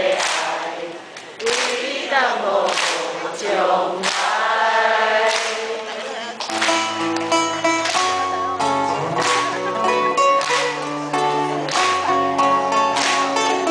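Live music: a man singing with an acoustic guitar. About six and a half seconds in, the band comes in with low bass notes and a steady beat.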